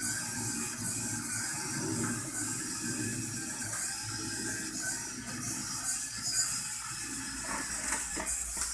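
Small DC gear motors of a hobby Arduino robot running steadily, with a whirr and hiss, as it drives around; a few sharp clicks near the end.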